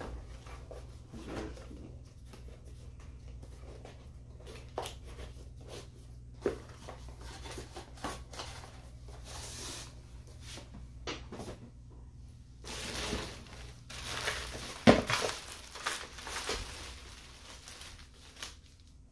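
Product packaging being handled and opened: plastic and cardboard crinkling and tearing, with scattered knocks and one sharp knock about three-quarters of the way through.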